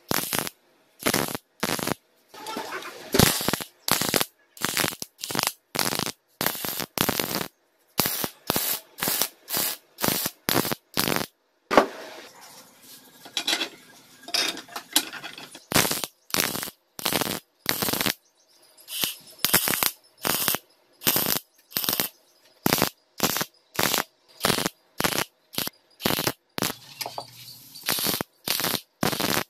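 MIG (wire-feed) welder laying tack welds on steel tube: dozens of short welding bursts, one after another, with silence between them. About twelve seconds in, the welding stops for a few seconds of quieter handling of the parts, then the tacks resume.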